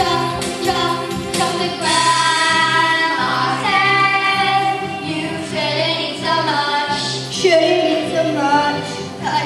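A children's choir singing a song in unison over instrumental accompaniment, holding long notes that slide down at the ends of phrases.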